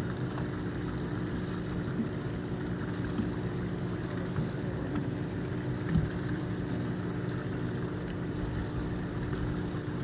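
Fishing boat's engine idling with a steady low drone, with one short knock about six seconds in.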